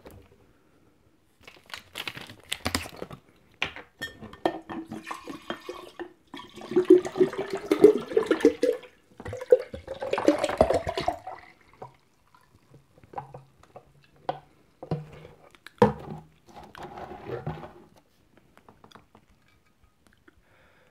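Grapefruit juice pouring from a plastic bottle into a glass pitcher in two long pours, the pitch rising as the pitcher fills. Before the pour the plastic bottle clicks and crackles as it is opened, and after it the bottle and pitcher knock and tap as they are handled and set down.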